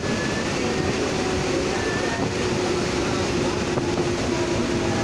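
Electric suburban EMU train running along the track, heard through its open doorway: a steady rumble and rush of wheels on rail, with a steady hum from about a second in.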